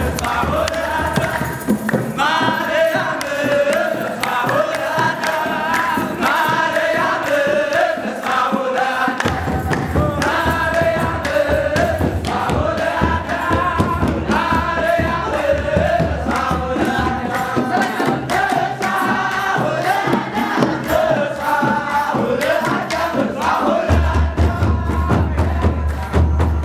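Ethiopian Orthodox liturgical chant sung by a large group of male voices, with kebero drums beating a steady rhythm; the drumming grows denser and heavier near the end.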